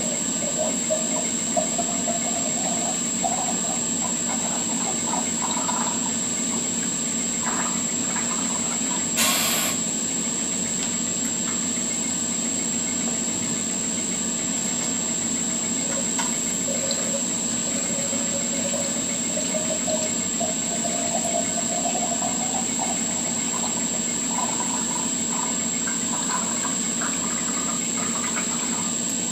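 Orange juice running from a stainless-steel filling valve into small plastic bottles, over a steady hiss and hum of machinery. A faint tone rises in pitch as a bottle fills, twice, and there is a short burst of hiss about nine seconds in.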